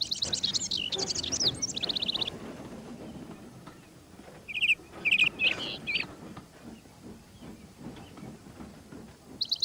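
Birdsong: a bird trilling in a rapid, even series of high notes for about two seconds, then a few short chirps around the middle, over a faint low background rumble.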